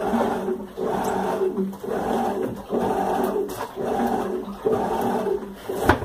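Electrolux LF11 top-loading washing machine agitating a load in water: the motor and agitator run in short back-and-forth strokes, each under a second, with water sloshing in the tub. A sharp knock comes just before the end.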